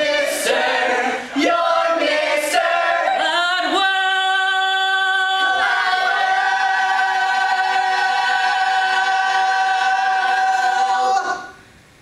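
Ensemble of mixed male and female voices singing the last phrase of a musical-theatre number, then holding the final chord for about seven seconds before cutting off together near the end.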